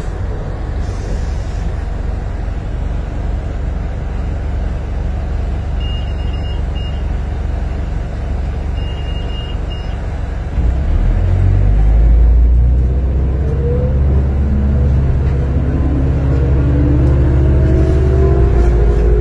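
Cabin noise of a 1995 New Flyer D40LF bus with a Detroit Diesel Series 50 engine: a steady rumble of engine and road. About ten seconds in, the engine gets louder as the bus accelerates, and several whining tones climb in pitch as it gains speed. Short high beeps sound twice around the middle.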